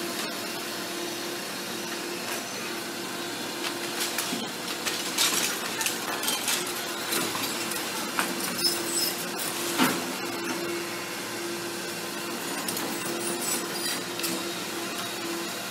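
Doosan tracked excavator running with a steady hum as its bucket breaks up a brick and concrete building, with repeated cracking and clattering of falling masonry and rubble, loudest about five and ten seconds in.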